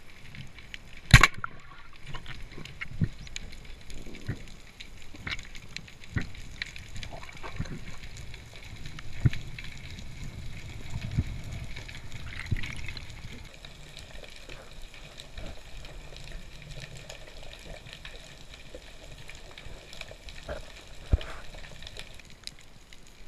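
Underwater water noise with scattered clicks and knocks, the loudest a sharp click about a second in.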